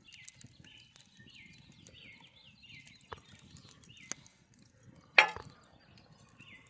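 A bird calling outdoors in a steady series of short, high, downward-sliding notes, about two a second. A few sharp clicks fall in between, and a single loud knock a little over five seconds in is the loudest sound.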